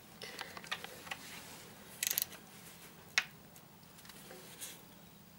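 Small metal clicks and clinks of a spanner being fitted onto a radiator-mounting bolt on a motorcycle, with a quick rattle of clicks about two seconds in and a single sharp click about a second later.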